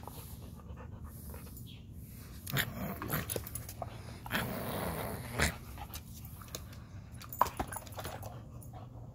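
Alaskan husky panting and grumbling close up, loudest in two noisy stretches around three and five seconds in.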